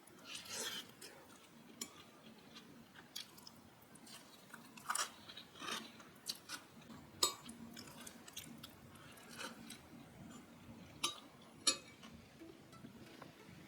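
Close-up eating sounds: chewing, with scattered small crunches and sharp clicks every second or two.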